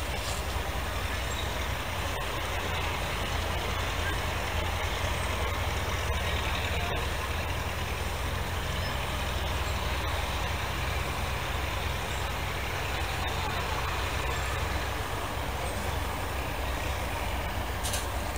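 International Harvester TD-18 crawler tractor's six-cylinder diesel engine running steadily, a low, even rumble with a rapid pulse.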